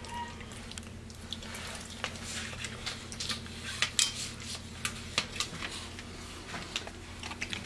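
A spoon scraping and clicking in a paper oatmeal cup, in small irregular taps and scrapes, over a steady low hum.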